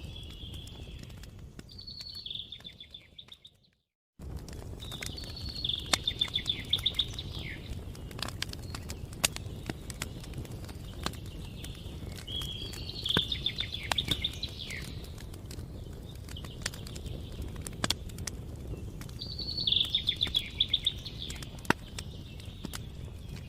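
Wood fire crackling with sharp irregular pops over a low steady rumble, while a songbird sings a short high trilled phrase about every seven seconds. The sound cuts out completely for about half a second near the start.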